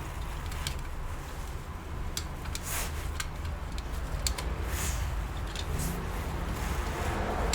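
Scattered light clicks and taps from a laptop RAM module being handled and fitted into its memory slot, over a steady low hum.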